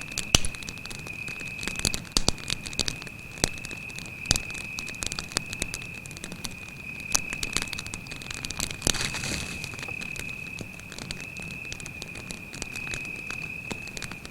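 Wood campfire crackling, with irregular sharp pops, the loudest near the start, and a brief hiss about nine seconds in, over a cricket's steady high trill.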